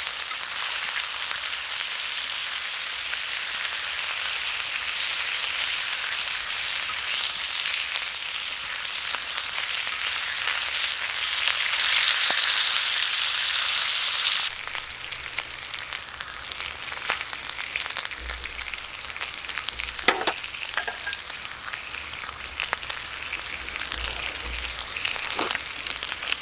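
Meat sizzling on a hot iron griddle plate heated over a campfire, a dense crackling hiss of fat frying. The sizzle eases a little about halfway through, and a few sharp clicks come near the end.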